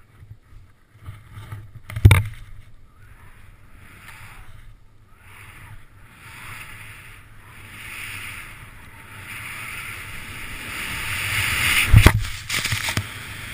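Skis hissing and scraping over steep snow, with wind on the microphone, growing louder as the skier gathers speed. A sharp thump about two seconds in, and a harder one near the end as the skis hit the snow in a spray of powder.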